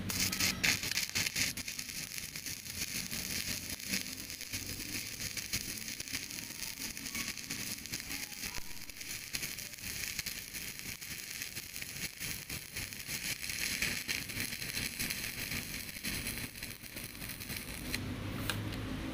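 Stick (arc) welding on angle iron: the electrode's arc crackles and sizzles steadily as a bead is run along the corner joint, then breaks off near the end.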